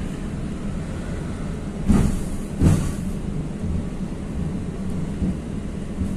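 71-623-02 (KTM-23) tram running with a steady low rumble and hum. Its wheels knock twice on the track, about two seconds in and again a moment later.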